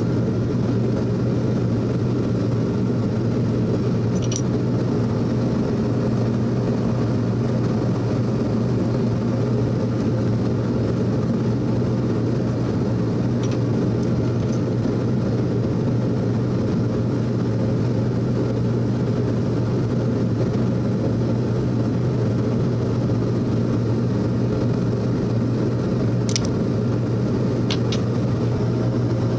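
Steady low hum of a machine motor running in a metalworking shop, constant throughout. A few light clicks sound from metal tools, a handful over the half-minute.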